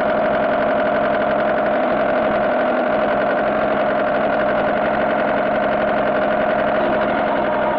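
Small motor scooter engine idling steadily, with an even, unchanging hum.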